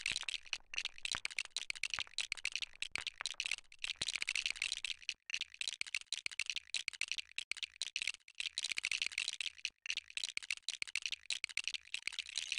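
Plastic LEGO bricks being picked up, sorted and snapped together, sped up into a dense, rapid clatter of small high clicks, with a few brief pauses.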